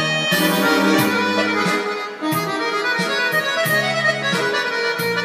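Electronic arranger keyboard played in an accordion-like voice: a busy folk-style melody over changing bass notes, with regular percussion hits from the accompaniment.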